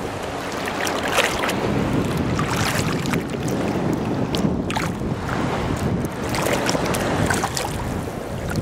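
Sea water rushing and splashing past a moving boat's hull, with wind buffeting the microphone.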